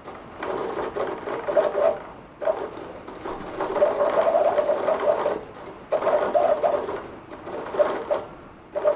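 Analog RC servo whirring as it swings a sailboat's rudder, a buzzing whine of its small motor and gears in bursts of under a second to about three seconds with short pauses between moves. It is the jittery analog servo that a digital one later replaces.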